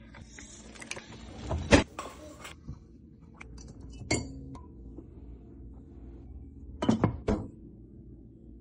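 Kitchen clatter of dishes and glassware: a sharp knock about two seconds in, a clink of glass about four seconds in as a glass cake dome is lifted, and a few quick clinks near the end as food is set on a plate.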